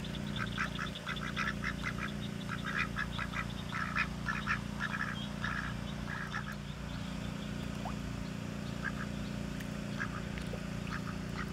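Ducks quacking in short, quick runs of soft calls, thinning to a few scattered quacks near the end, over a steady low hum.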